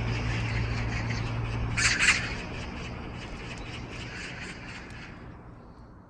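Outdoor yard ambience with a steady low machine hum that stops about two seconds in, where a short harsh bird squawk is the loudest sound. The whole sound then fades out.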